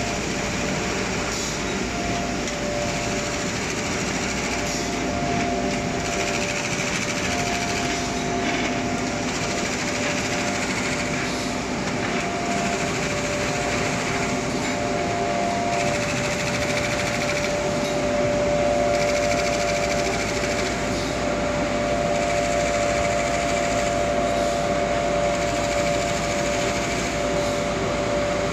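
SP-ZD4500x2500 automatic jumbo folder gluer running with corrugated board being fed through it: steady mechanical running noise with a steady motor whine.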